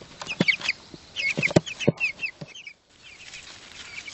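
Young meat chicks peeping with many short, high chirps, while several knocks and thumps sound in the first half as they are tipped out of a plastic transport barrel.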